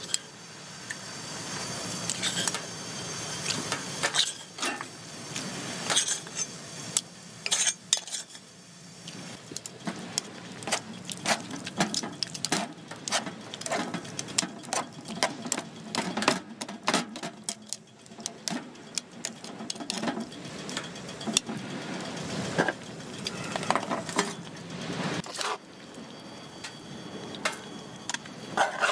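Metal cooking utensils clinking, tapping and scraping against pots and dishes in a long run of irregular, sharp knocks.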